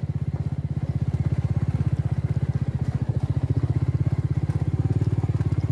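Motorcycle engine running steadily at low speed, heard close up from the bike as it rides a rough dirt trail, with a rapid, even pulsing beat.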